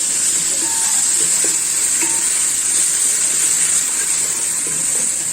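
Onions and spices sizzling in hot oil in a pan while being stirred, as chopped tomatoes go in; a steady hiss with a few faint clinks.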